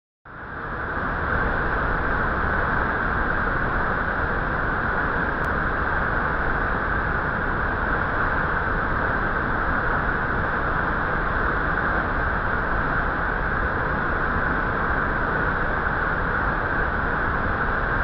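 Steady rushing roar of a large waterfall close by. It fades in over about the first second and then holds even.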